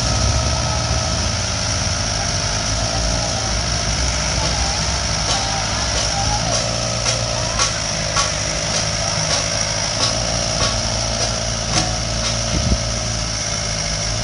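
Sumitomo tracked excavator's diesel engine running steadily, with occasional sharp clicks over it.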